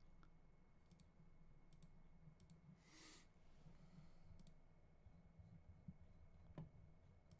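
Near silence broken by a few faint, scattered clicks and a short soft hiss about three seconds in.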